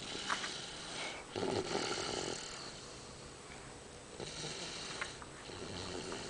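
A toddler snoring in her sleep, slow snoring breaths with the loudest about a second and a half in.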